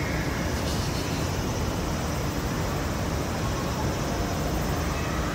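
Steady low rumbling noise with a hiss over it: outdoor city ambience, such as traffic and wind.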